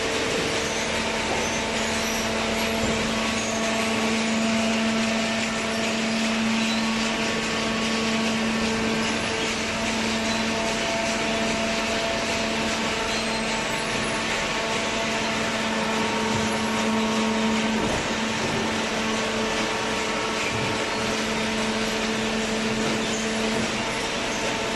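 Hydraulic baler running steadily: the motor and hydraulic pump hum at a constant pitch over an even mechanical noise, and the hum fades near the end.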